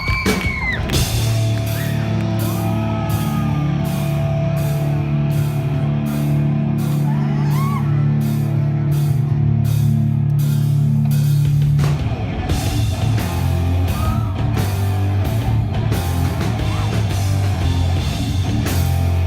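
Rock band playing live: drum kit with evenly spaced cymbal hits, electric guitar and a sustained bass line, with the bass pattern changing about twelve seconds in.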